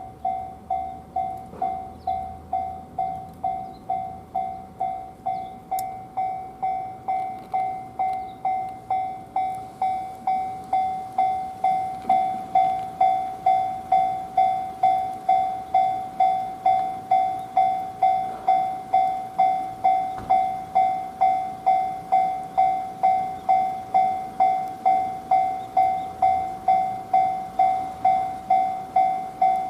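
Japanese level-crossing warning bell ringing on and on in a steady beat of about one and a half to two strikes a second, louder from about ten seconds in. It keeps sounding though all trains are suspended by heavy snow, a sign of a suspected crossing fault.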